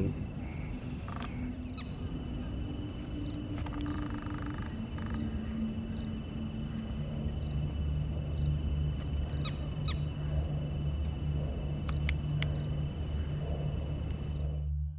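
Outdoor wetland ambience: a bird gives short chirps again and again, over a steady low hum. The sound cuts off suddenly near the end.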